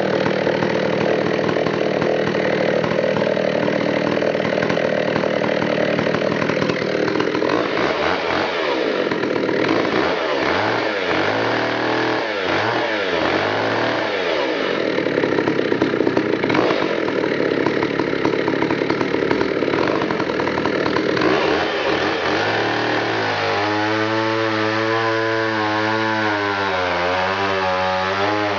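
McCulloch 440 two-stroke chainsaw running loud, its pitch sweeping up and down as the throttle is worked. Over the last few seconds it is cutting down through a log, its pitch lower and wavering under the load.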